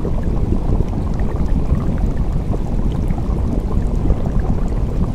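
Steady low rushing and gurgling of water in an aquarium tank, an even, unbroken noise with no distinct pitch.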